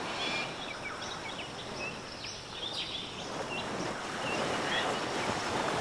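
Small waves washing onto a sandy beach, a steady surf hiss that grows slightly louder, with scattered short high chirps over it.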